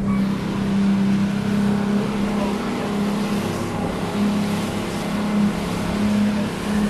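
Charter boat's engine running steadily with a constant low hum, over a dense steady hiss.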